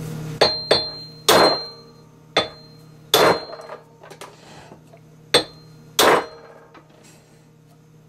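Hammer blows striking the steel handle of a hub puller, about seven sharp metal-on-metal strikes at an uneven pace, several leaving a brief ring. There is a pause of about two seconds in the middle. The blows drive the puller to break the tapered hub off the Dana 44 axle shaft.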